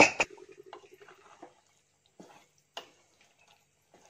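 A few faint, scattered clicks and knocks of a wooden spoon against an open aluminium pressure cooker as cooked green-pea curry is stirred. A short faint buzzing tone sounds in the first second.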